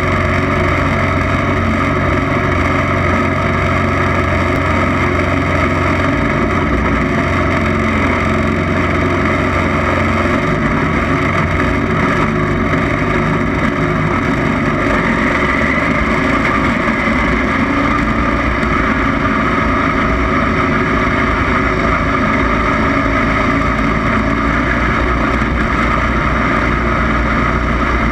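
Racing lawn mower engine running loud at high revs, its pitch wavering up and down with the throttle.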